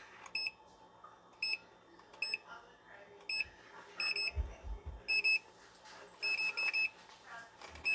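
Digital multimeter's buzzer giving short high beeps at uneven intervals, some single and some in quick pairs or runs of three. The repaired meter is powered up and responding. A few low handling thumps come about halfway.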